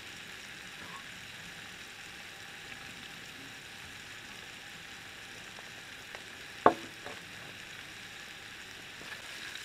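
Sausage sizzling steadily on a griddle plate heated by an alcohol burner, with one sharp knock about two-thirds of the way through.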